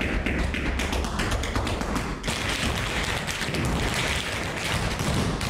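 Tap shoes of several dancers striking a wooden studio floor in rapid, dense rhythms, with a brief break about two seconds in.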